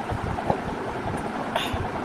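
A person eating: irregular soft chewing and mouth sounds, with a click about half a second in and a brief crisp burst near the end, over a steady background rumble and hiss.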